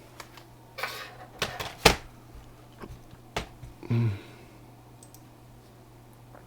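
Typing on a computer keyboard: irregular key clicks and short clattering runs, with one sharp louder click about two seconds in, then a brief low hum near four seconds and the typing stops.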